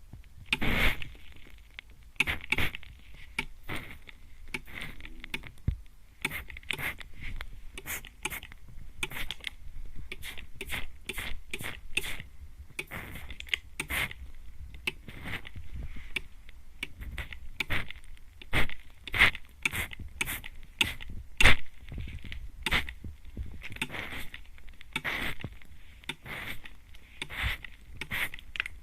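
Hand-pumped mist spray bottle spritzing at close range onto the microphone's ears. There are many short hissing sprays in quick, uneven succession, about one or two a second.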